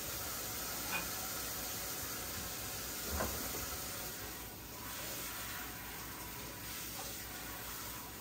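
Steady low hiss with two light knocks, one about a second in and one just after three seconds.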